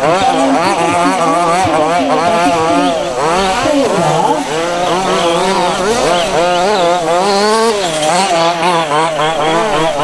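Several 1:5 scale RC buggies' small two-stroke petrol engines racing together, each revving up and down so their pitches overlap and waver continuously.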